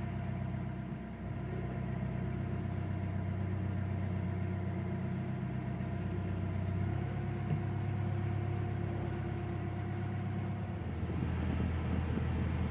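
A narrowboat's diesel engine running steadily as the boat cruises along at low speed, its note shifting slightly about seven seconds in.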